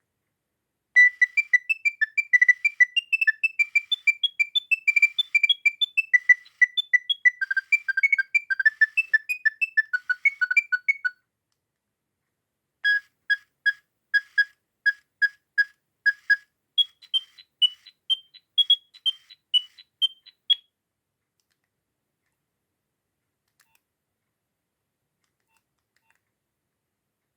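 Nokia 6610 mobile phone ringtones: simple beeping melodies of quick single notes. A fast tune plays for about ten seconds, then after a short gap a run of evenly spaced beeps at about three a second, then another short tune, then silence for the last several seconds.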